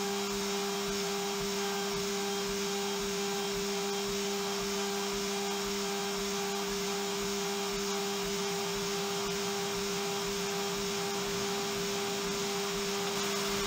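CNC mill spindle whining steadily as a PVD-coated ball end mill makes a finishing pass over a hardened 20CV steel knife blade bevel, with a constant hiss from the air blast on the cutter.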